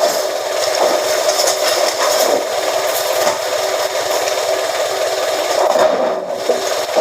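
Scrap-iron press machine running: a steady, loud mechanical noise, dipping briefly about six seconds in.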